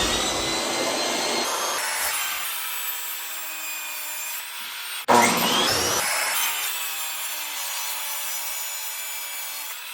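Power tool cutting wood in two separate runs, the second starting about five seconds in. Each run begins with a quick rising whine as the motor comes up to speed, then settles into a steady cutting noise that slowly fades.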